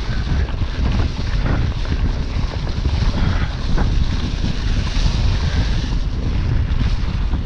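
Steady wind rush on the handlebar camera's microphone as a Specialized Epic Comp full-suspension mountain bike is ridden fast along a dirt forest track, with the rumble of its tyres and a few small rattles and knocks from the bike.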